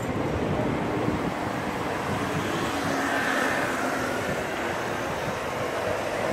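Street traffic noise, with a motor scooter passing about three to four seconds in.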